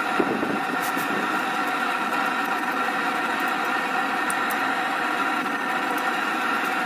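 A motor running steadily: an even drone with several steady tones that does not change.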